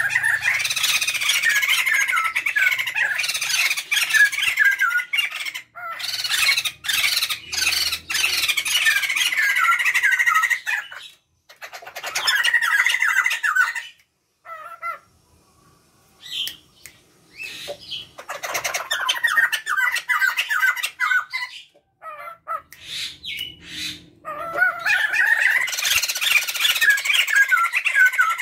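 A male and female Sumatran laughingthrush calling together in loud bouts of rapid, chattering 'laughing' notes. The pair goes quiet briefly about halfway through.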